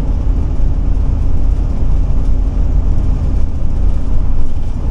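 Steady low rumble of a Ford E450-based motorhome driving at highway speed: its Triton V10 engine running together with tyre and road noise, heaviest in the low end and even throughout.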